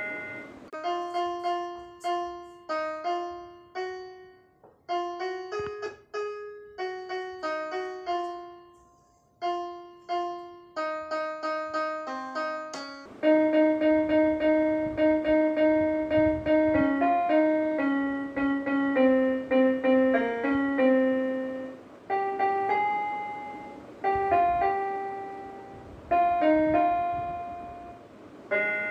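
Piano music: a slow melody of single struck notes with short pauses, becoming louder and fuller about halfway through.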